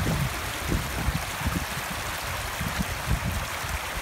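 Shallow rocky stream rushing and splashing over stones in small cascades, a steady noisy wash. Irregular low bumps sound underneath it.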